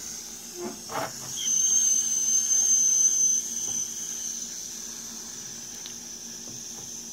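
Jensen Model 70 steam engine's boiler bleeding off its remaining steam pressure through the open whistle valve: a thin, high-pitched whistle, louder for about two seconds starting a second and a half in, then settling back to a faint steady whine as the pressure dies down.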